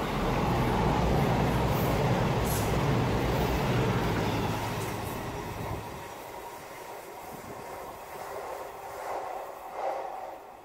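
A CrossCountry Voyager diesel multiple unit passing close at speed: a loud rush of wheels and underfloor diesel engines with a deep rumble, ending abruptly about six seconds in. After that a quieter diesel train sounds from farther off.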